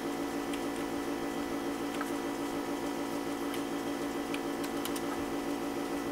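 Steady low hum of recording background noise, with a few faint keyboard clicks as a ping command is typed.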